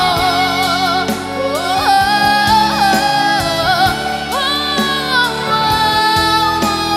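A slow song: a singer holds long notes with a wide vibrato, sliding between pitches, over instrumental backing.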